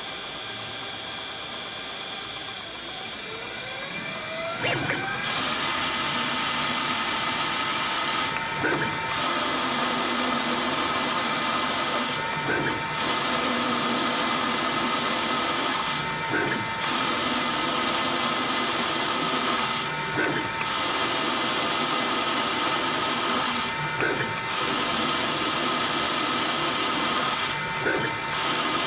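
CNC-converted Myford ML7 lathe running: a whine rises in pitch over the first five seconds, then the machine runs steadily with a short regular change in the sound about every four seconds.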